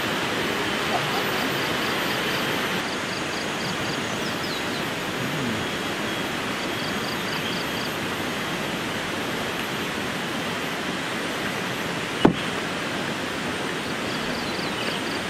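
Steady rushing outdoor background noise. Faint high chirps come in short rapid runs several times, and there is one sharp click about twelve seconds in.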